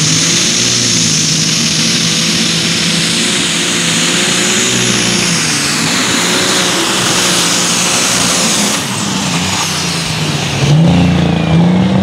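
Case IH super stock pulling tractor's engine at full power under load as it drags the sled, with a high turbo whine over the engine note. About nine seconds in, the whine slides down as the engine comes off the load. Near the end a louder low engine note comes back.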